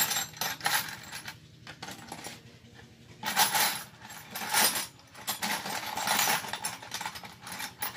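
Light metallic clinking and rattling as the cutting tool is loosened and taken off a metal lathe's tool post, in several short clusters of clicks.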